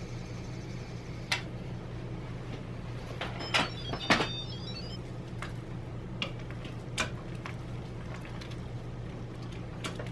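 Instant Pot pressure cooker lid being twisted open and lifted off, a cluster of clicks and clunks about three and a half to four seconds in. After that, a wooden spoon stirs cooked black beans in the stainless steel inner pot, knocking against it now and then.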